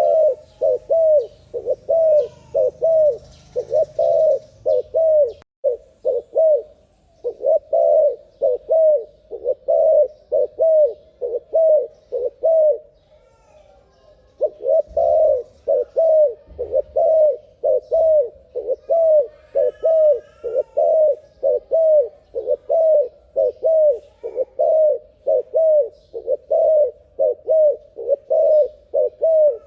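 Dove cooing in a fast, steady series of short coos, about two a second, broken by a pause of about two seconds near the middle.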